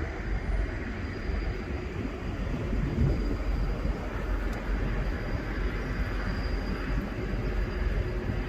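Steady low rumbling noise without a clear pitch, heaviest in the bass.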